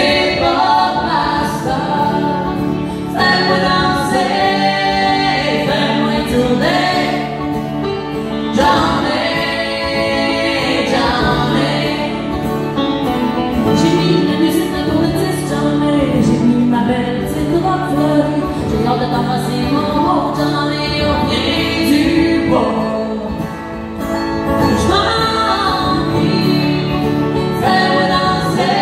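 Live country-folk song: a woman singing to strummed acoustic guitar and picked banjo, played through a stage PA.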